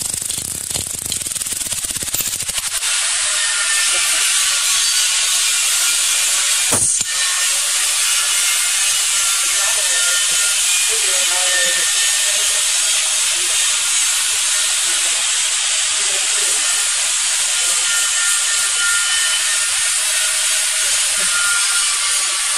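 Compressed air hissing steadily from the vulcanizing machine's pneumatic cylinder, valve and air hose. The hiss sets in a couple of seconds in, with one sharp click a few seconds later.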